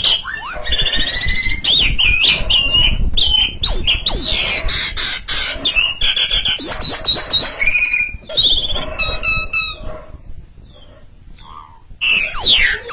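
Asian pied starling singing a loud, fast, varied song of whistled notes that sweep up and down, mixed with short clicks. It goes quiet for about two seconds near the end, then starts again with loud sweeping whistles.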